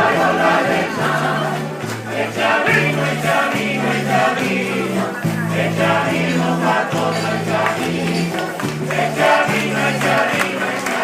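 Live Canary Islands folk music: a group of voices singing together over instruments, with a bass line moving in steady held notes.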